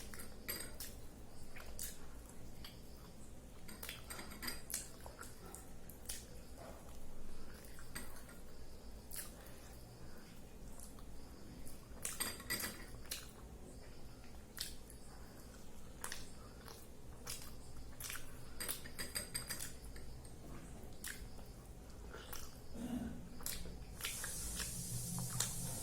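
Light clinks, taps and scrapes of utensils against a plate while a meal of idli and sambar is eaten, coming in scattered clusters. A steady hiss comes in near the end.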